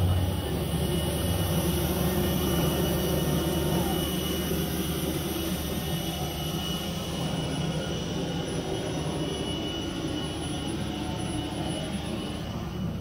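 Steady jet-turbine whine over a low rumble from a parked Airbus A321 airliner at its stand, its engines shut down and its auxiliary power unit running, slowly growing fainter.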